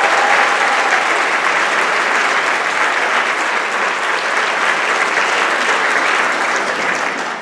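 Audience applauding in a large hall, a dense, steady clapping that eases slightly near the end.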